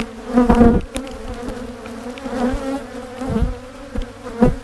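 Many honeybees buzzing around an opened hive, with one passing close and loud about half a second in: the agitated buzz of a defensive, queenless colony. A few dull bumps break in.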